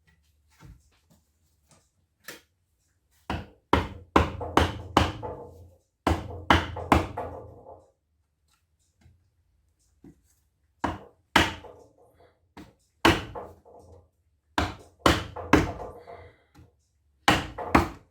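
Sharp knocks on a wooden block held against the Alfa Romeo 33's cylinder head, tapping to free the head stuck to the engine block. The blows come in irregular clusters of two to four, each with a brief ringing decay.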